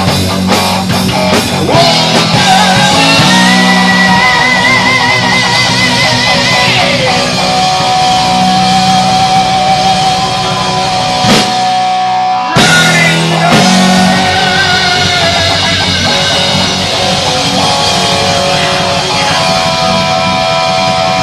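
Live rock band playing loud heavy metal: electric guitar holding long, wavering lead notes over bass and drums. The band stops briefly around the middle and crashes back in.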